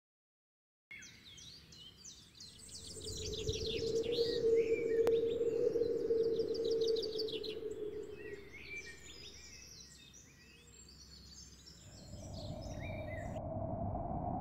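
Ambient soundscape of many birds chirping and calling, over a low moaning wind that swells in the middle. Near the end the birdsong cuts off and a deeper wind gust rises and falls with a low rumble.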